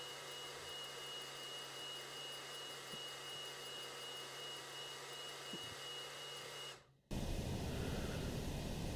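xTool D1 Pro diode laser module running while it engraves a wooden pen blank turning on the rotary axis: a steady hum with a constant high-pitched whine. Shortly before the end the sound cuts off abruptly and gives way to a louder, rough hiss.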